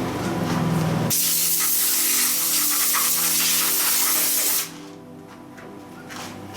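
Milling machine running steadily under a loud spraying hiss. The hiss starts about a second in and cuts off abruptly some three and a half seconds later.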